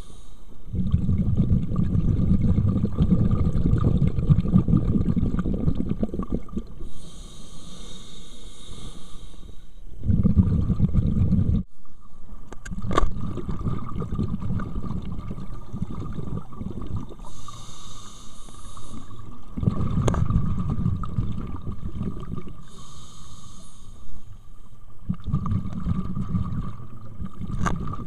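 Scuba diver breathing through a regulator underwater. Short hissing inhales alternate with long, low bubbling rumbles of exhaled air, about four breaths in all.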